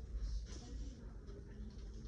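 Quiet indoor background noise with a steady low rumble and faint, indistinct shop sounds; nothing distinct stands out.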